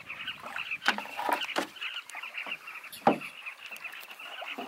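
A nesting colony of carmine bee-eaters calling, a dense chatter of many short chirps, with a few sharp knocks or splashes from the canoes about a second in and again about three seconds in.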